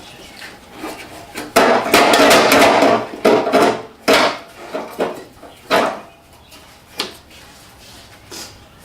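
A stuck car body panel being tugged and worked loose by hand: loud scraping and rubbing for over a second, then several shorter scrapes and knocks. The panel is caught on a stud, which the mechanic thinks is down to old double-sided tape underneath.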